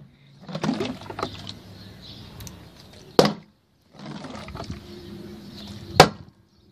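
Partly filled plastic water bottle being flipped onto a wooden deck: a sharp knock on the boards about three seconds in, then a louder knock about six seconds in as it lands upside down on its cap and stays standing. Faint scuffing and handling sounds fill the gaps.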